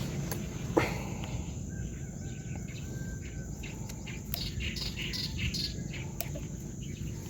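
Outdoor ambience: a steady low rumble with scattered short, high chirps and ticks, a faint thin whistle-like tone about two seconds in, and a single click just under a second in.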